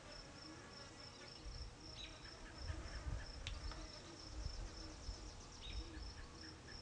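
Faint insects chirping: a high, steady chirp repeating about four times a second, with some low rumbling underneath.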